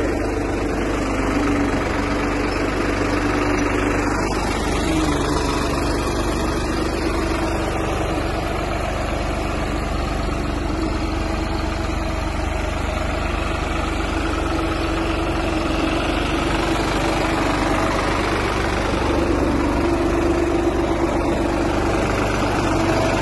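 New Holland tractor's diesel engine running steadily under load, pulling a potato planter, with an even drone throughout.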